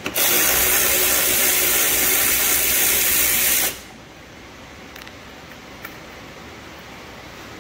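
Cordless electric ratchet spinning a socket on a 7 mm panel bolt, taking it out: a steady motor whir for about three and a half seconds that stops abruptly.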